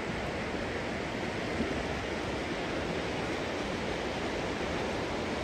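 Steady rushing of running water from a stream or small waterfall, an even hiss that holds at the same level throughout.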